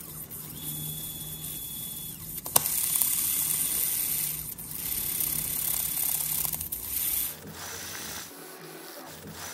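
Nema 17 stepper motor turning a 3D-printed strain wave gear, a steady mechanical whir with a high whine and a low hum. It gets louder after a click about two and a half seconds in, dips briefly a couple of times, and stops a couple of seconds before the end.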